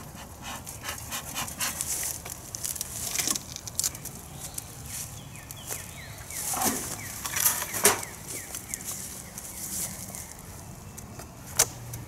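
Short whooshing puffs of a bee smoker's bellows, then rustling, clicks and knocks as the wooden cover and boxes of a beehive are handled, with one sharp knock near the end.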